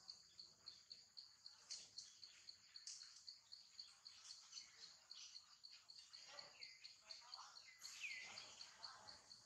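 Faint insect chorus pulsing steadily at about four pulses a second, with a couple of short bird calls that drop in pitch, the clearest about eight seconds in.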